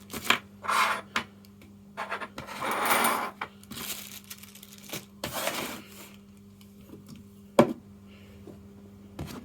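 Objects being handled and shifted on a workbench: scattered clicks and knocks with two stretches of rubbing or rustling, and a sharp click toward the end. A steady low hum runs underneath.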